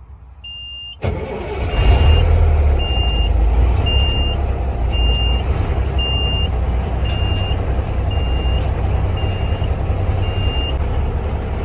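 A Peterbilt 362 cabover's diesel engine starts about a second in and runs loudly at idle. The truck's low-air warning buzzer beeps about once a second and falls silent shortly before the end, as the compressor builds the air pressure back up.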